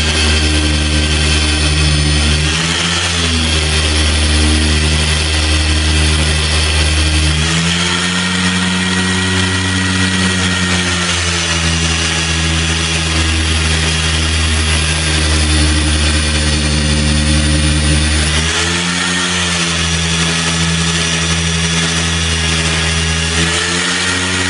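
Cordless polisher's electric motor running continuously as its foam pad works over car paint: a steady hum whose pitch shifts several times.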